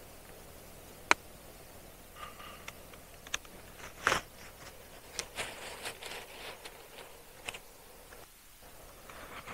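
Camp gear and cooking things being handled and moved about: a sharp click about a second in, a knock about four seconds in, then a run of rustling and scraping and another click a little later.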